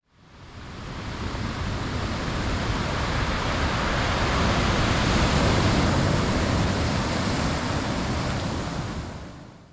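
Steady rushing noise like wind or surf, fading in, swelling to its loudest midway and fading out near the end.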